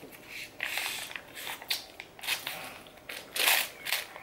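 Capri-Sun foil drink pouch crinkling and crackling as it is squeezed and sucked through its straw, in irregular bursts. A hole in the pouch makes it keep making these noises with each sip.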